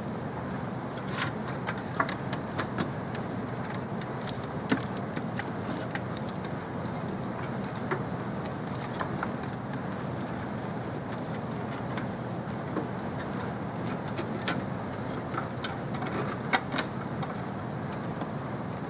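Scattered sharp clicks and light knocks, about ten in all, over a steady background hiss.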